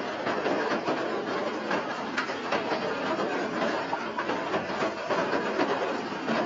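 Steady rain falling, a dense, irregular patter of drops.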